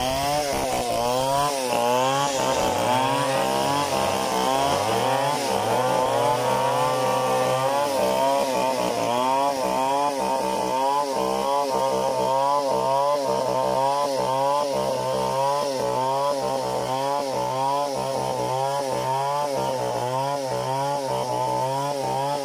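Stihl 070 two-stroke chainsaw at full throttle, ripping lengthwise along an acacia log to mill a plank freehand. The engine pitch rises and dips a little more than once a second as the saw is worked through the cut.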